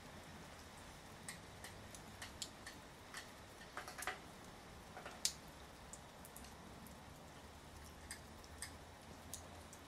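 Raindrops dripping from a leaking platform shelter roof: scattered, irregular drip ticks, a few a second, with one louder drop about five seconds in, over a faint steady hiss.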